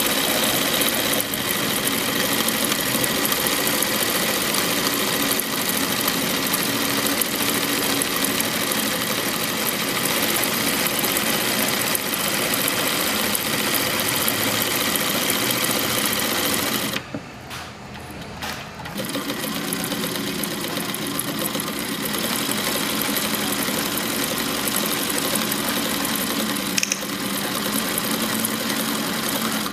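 Atlas AT2284 three-step zigzag industrial sewing machine running steadily as it stitches a zigzag seam. It stops for about two seconds a little past halfway, then runs again.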